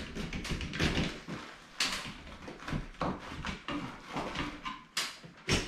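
Flexible duct hose and wiring being pushed up into a metal ceiling exhaust-fan housing by hand: irregular rustles, scrapes and knocks against the metal, several times.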